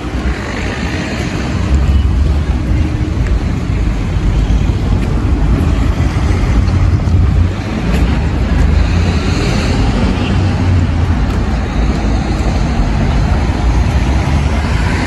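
Steady low rumble of outdoor street noise, heaviest in the bass, with a faint hiss that swells briefly about nine seconds in.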